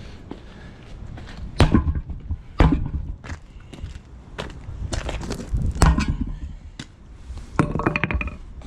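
Hammer blows on a semi truck tire to break the bead from the rim on the back side: a handful of heavy, irregularly spaced thuds, the hardest about one and a half, two and a half and six seconds in.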